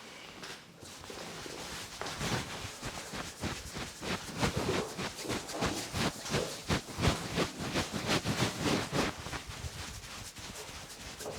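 Hands working over bare skin in a body massage: a quick rhythmic run of strokes, about two to three a second, starting about two seconds in, loudest in the middle and easing off near the end.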